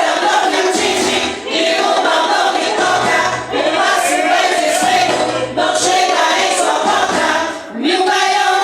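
A group of women singing a Portuguese-language gospel hymn together over a playback backing track, in phrases broken by short breaths about every two seconds.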